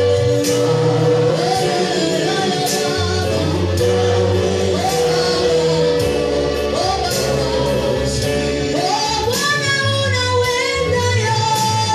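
Gospel worship singing: several women and men singing into microphones over a backing of a long-held chord and a changing bass line, with light percussion. The lead voice climbs higher about nine seconds in.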